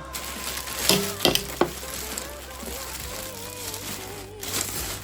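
A background song with a sung melody, over crinkling and several sharp clicks from packaging being handled while unboxing.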